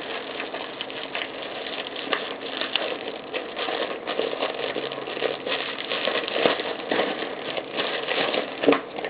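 Rustling and crinkling of gift packaging being handled and opened, a continuous run of small crackles and clicks.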